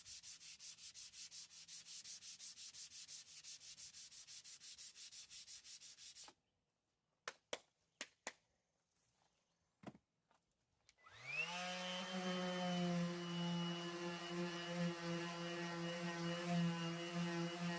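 Rhythmic sanding strokes on boat gelcoat, about five a second, which stop about six seconds in. After a few clicks, an electric power tool's motor starts about eleven seconds in, spins up with a rising whine and runs on steadily.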